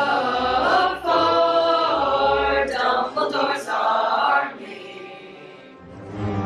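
A mixed group of teenage voices singing a short a cappella choral phrase in held notes, stopping about four and a half seconds in.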